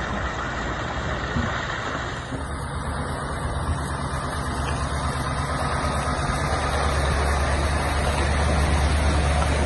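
Scania 770 truck's V8 diesel engine running at low speed as the truck drives slowly past, a low engine note that grows louder over the last few seconds as it comes close.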